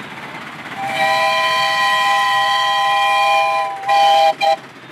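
Steam whistle on a 7¼-inch-gauge miniature BR Britannia class locomotive: one long blast of nearly three seconds sounding several pitches together as a chord, followed by two short toots near the end.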